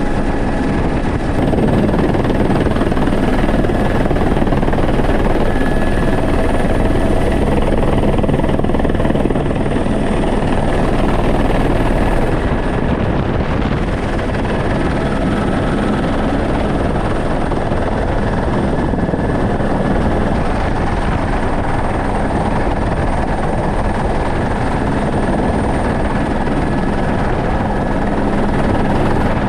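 Helicopter in flight, heard from inside the cabin: steady rotor and engine noise with a thin, steady high whine over it.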